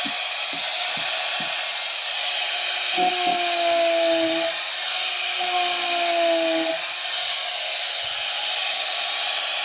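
Angle grinder fitted with a sandpaper disc running steadily while sanding down a wood surface, a loud, even whoosh. Twice, from about three seconds in and again near seven, a fainter tone slides slightly down in pitch.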